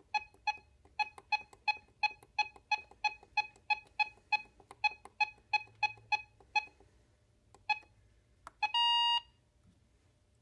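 RadioShack 12-521 NOAA weather radio giving short button beeps, about three a second for the first six or seven seconds, as its clock is stepped minute by minute. A couple more single beeps follow, then one longer beep about nine seconds in.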